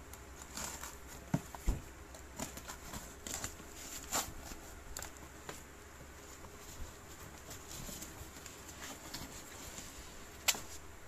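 Unboxing a parcel: a cardboard box is cut open with a utility knife and bubble-wrapped boxes are handled, giving irregular crackles, rustles and clicks, with one sharp click near the end.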